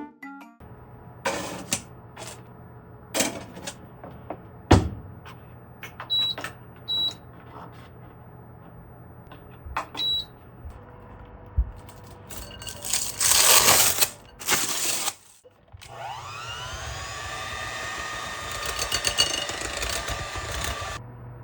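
Kitchen prep sounds: scattered clicks and knocks of utensils and containers, with three short high beeps. A loud noisy stretch of about two seconds follows. Then a small electric kitchen appliance motor spins up and runs steadily for about five seconds before stopping.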